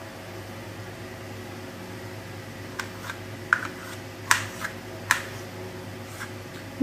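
Knife cutting mango into small pieces on a ceramic plate, the blade clicking sharply against the plate several times about halfway through, over a steady low hum.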